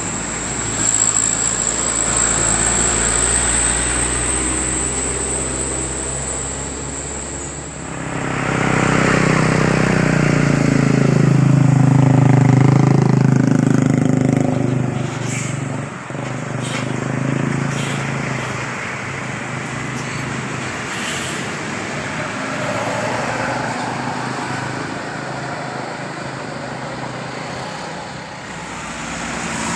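Road traffic with a heavy vehicle's engine, most likely a bus, passing close by. It swells to its loudest about twelve seconds in and fades, and steady traffic noise runs on around it.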